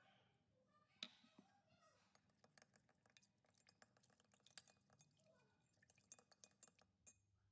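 Faint clinking and scraping of a metal spoon against a glass measuring jug as corn flour is stirred into water, in quick irregular ticks, with one sharper knock about a second in.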